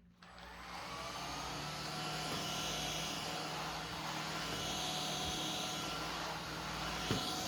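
Philips SpeedPro 8043 cordless stick vacuum running steadily, a whining motor noise with high steady tones over a low hum. It swells over the first second, and there is a brief knock about seven seconds in.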